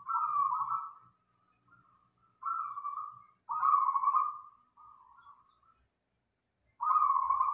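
Zebra dove (perkutut) cooing: about five short rolling coo phrases, separated by pauses of about a second, the last one loud near the end.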